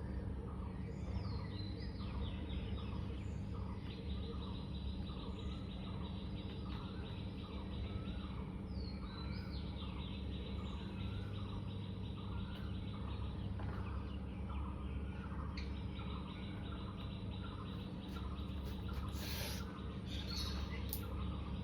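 Short chirps repeating just under twice a second over a steady low hum, with a fast, high buzzing trill through much of it.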